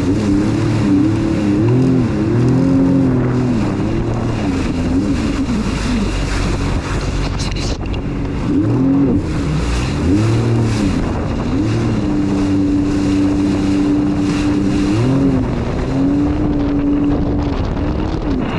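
Jet ski engine running under way, its revs rising and falling again and again, with one steady held stretch past the middle, over wind noise on the microphone.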